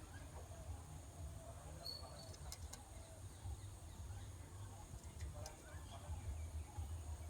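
Faint calls of parakeet chicks over a steady low rumble, with a few sharp clicks.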